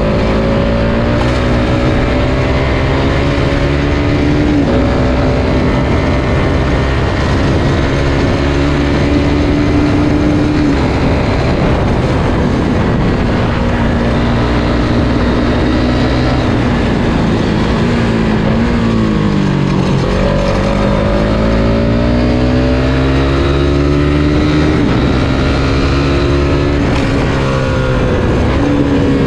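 Suzuki Satria F150 fuel-injected single-cylinder motorcycle engine heard on board while riding. Its pitch climbs with the revs and drops sharply at each gear change, several times. About two-thirds through it falls low as the bike slows, then climbs again. Steady wind and road rush run underneath.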